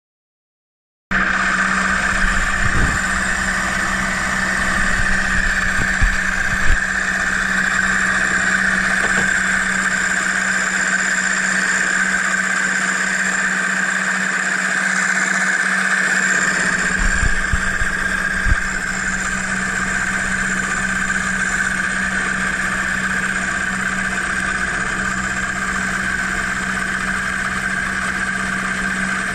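A workshop machine's motor running steadily with an even hum, starting abruptly about a second in, with a few scattered knocks.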